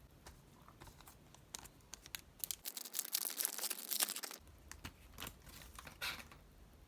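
A Donruss football card pack's foil wrapper being torn open and crinkled, among light clicks of cards being handled; the densest tearing comes from about two and a half to four and a half seconds in.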